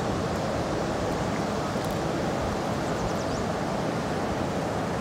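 Steady rushing of river water tumbling through the whitewater below a dam spillway.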